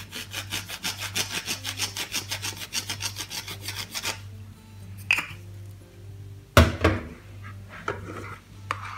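Herb grinder mill grinding dried oregano: a rapid rasping ratchet of about nine clicks a second for about four seconds, as the grinder top is twisted. A single loud knock follows about six and a half seconds in.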